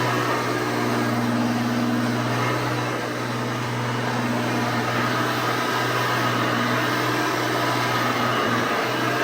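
A 1988 Hoover Elite 600 upright vacuum cleaner running steadily, its motor giving an even hum with a rushing of air.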